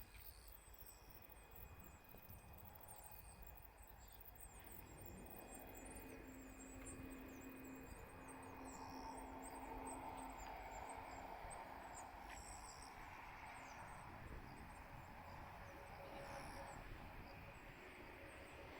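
Near silence: faint countryside ambience with many short, high chirps, thickest in the first half.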